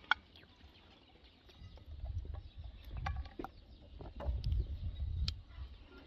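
Raw chicken pieces being set down one by one into an empty metal pot: a few scattered knocks and clicks, the sharpest right at the start, over a low rumble, with faint bird calls in the background.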